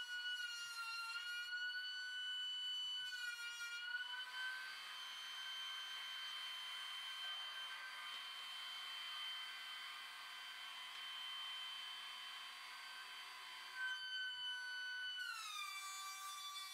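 DeWalt DW735 benchtop thickness planer running with a steady high whine while a board is fed through it, a rushing cutting noise added through the middle. About 15 seconds in the whine steps down in pitch.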